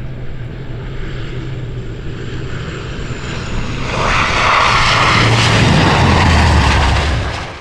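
Aircraft engines droning with a steady low hum, growing louder about halfway through, then cutting off abruptly at the end.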